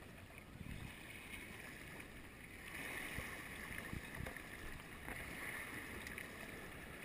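Small waves washing in over shallow sand at the water's edge: a faint, steady wash of water that grows a little louder about three seconds in.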